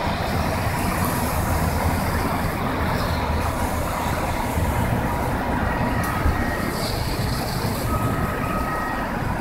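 Steady road traffic noise with a low rumble as cars move through the intersection once the crossing reopens. A few faint, thin high tones come in over it about two-thirds of the way in.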